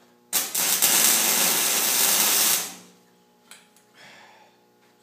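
MIG welder arc on a steel pipe gate frame: a loud, steady crackle lasting about two seconds as a corner joint is welded. A small click and a brief fainter noise follow.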